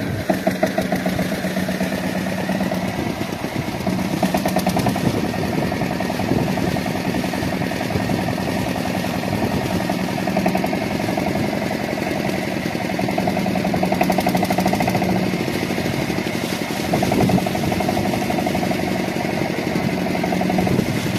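Lister-type diesel engine driving a centrifugal irrigation water pump, running steadily with a fast, even beat of firing strokes.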